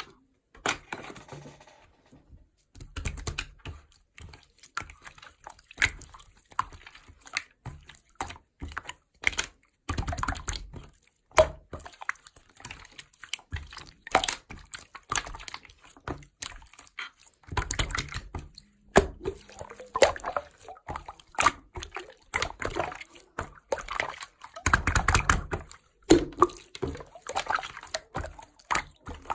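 Slime being squished and worked by hand, making a dense, irregular stream of wet clicks and pops.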